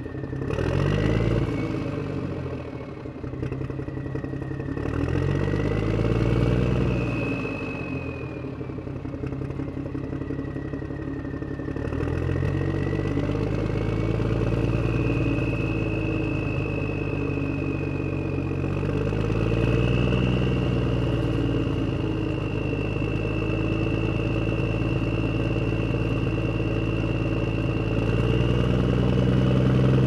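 A vehicle engine running, revving up and easing off several times, with a high whine that rises and falls along with it.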